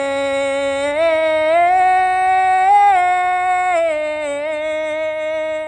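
A man singing one long held note without accompaniment. The pitch rises slightly about a second in, lifts a little more near three seconds, and slides back down about four seconds in.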